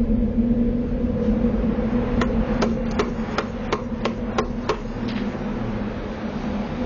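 A quick run of about nine sharp knocks, roughly three a second, over a steady low hum.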